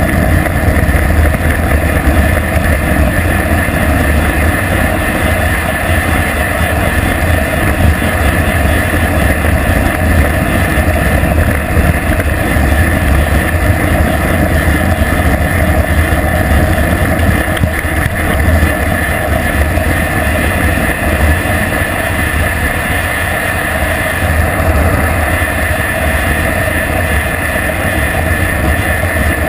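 Steady low wind rumble buffeting a GoPro camera's microphone as a bicycle coasts fast downhill.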